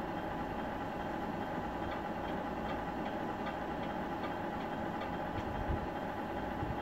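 Electronic sound unit of a Tamiya Scania RC truck playing a simulated diesel engine idling steadily through its small speaker, with a faint tick repeating about two or three times a second.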